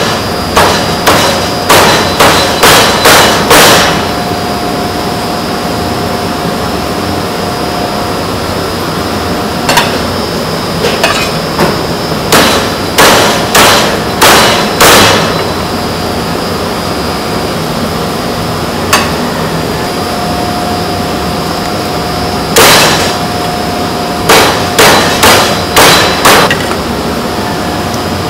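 Meat cleaver chopping through boiled chicken onto a thick wooden chopping block: sharp chops in quick runs of five to eight, with a few single strokes between the runs.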